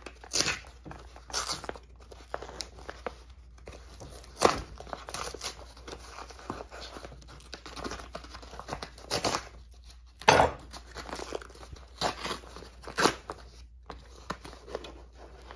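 A brown kraft paper-padded mailer being torn and cut open by hand, with its shredded-paper padding. Irregular sharp rips come among quieter crinkling of the paper.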